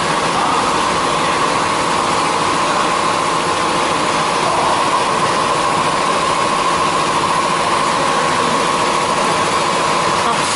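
Machinery running steadily with a constant high whine over a loud, even hum.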